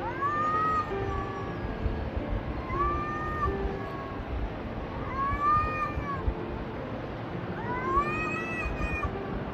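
A cat meowing four times, about every two and a half seconds: long, drawn-out, high meows, each rising and then falling in pitch.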